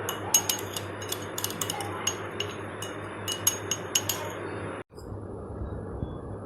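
A utensil clinking irregularly against a glass dish, several ringing clinks a second, over a steady low hum. Near the end it cuts off abruptly to a duller, muffled steady noise.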